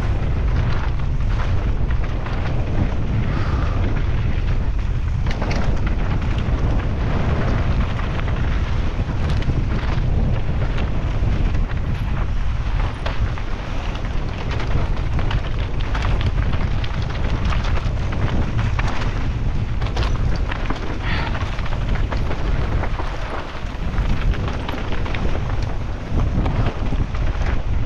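Wind buffeting the microphone with the heavy rumble of a mountain bike descending rough trail at speed, with constant short knocks and rattles from the bike over rocks.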